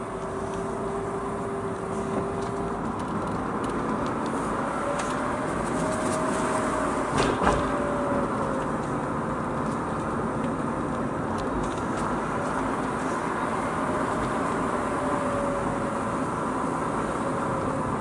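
Mazda RX-8's twin-rotor Wankel engine pulling the car along with steady road and tyre noise. Its pitch climbs over a few seconds and then eases back. A single sharp knock comes about seven seconds in.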